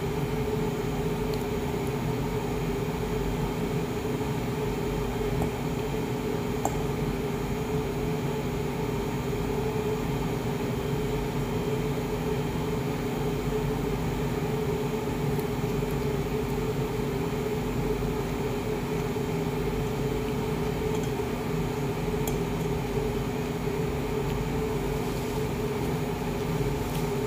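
Steady whirring hum of a running fan-driven machine, such as a room air conditioner, with a low tone held in it. A couple of faint light clicks sound over it.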